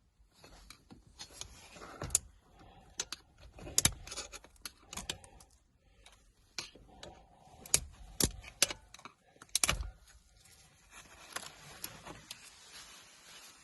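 Irregular clicks, knocks and light plastic rattling from hands handling a steering-wheel airbag module and its connectors as it is taken out of the wheel.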